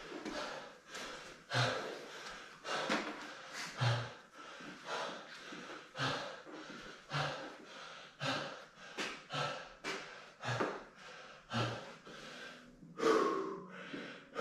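A man's hard, heavy breathing, about one breath a second, as he recovers from a set of burpees and is out of breath. A short voiced sound comes near the end.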